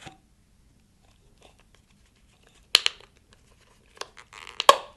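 Plastic caps being pried off PAPR filter cartridges: two sharp plastic snaps, one nearly three seconds in and one just before the end, with a brief click and scraping rustle leading into the second.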